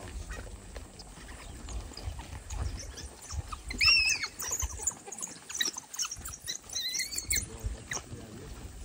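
A pack of African wild dogs scuffling and twittering as they attack an impala, with many short high chirps. A loud high-pitched squealing call rises and falls about four seconds in, and a shorter one comes around seven seconds in.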